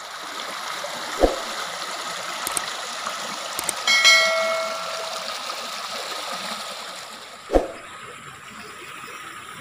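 Muddy floodwater rushing through a gap in the bank into a swollen river, a steady rush that grows quieter after about seven seconds. A short electronic chime sounds about four seconds in, and there are two sharp knocks, one near the start and one near the end.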